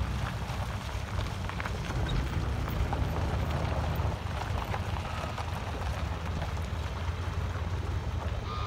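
Low, steady diesel rumble from a river car ferry and a semi-truck driving off it up the gravel ramp.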